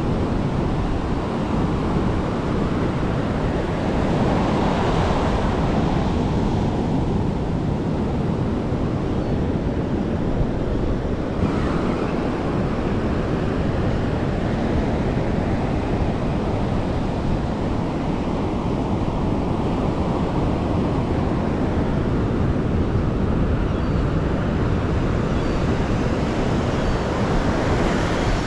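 Wind buffeting the microphone over the steady wash of ocean surf breaking on the beach, swelling a few times as gusts or waves come through.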